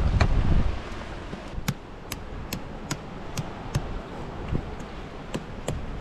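Tent pegs being tapped into stony ground: a steady run of sharp clicks, about two or three a second. Wind buffets the microphone over the first second.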